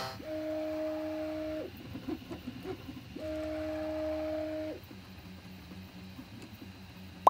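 3D printer's stepper motors whining through two long moves of about a second and a half each, the pitch sweeping up as each move starts and down as it stops, over a low steady hum.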